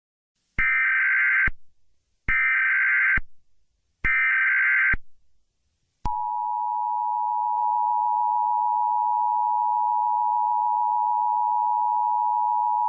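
Emergency Alert System header: three buzzy bursts of SAME data tones, each about a second long with short gaps, then about six seconds in the steady two-tone EAS attention signal starts and holds.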